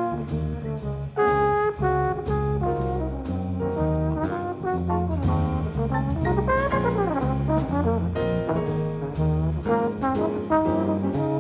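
Trombone playing a jazz solo line over a rhythm section of piano, electric bass and drum kit, with the cymbals struck on the beat.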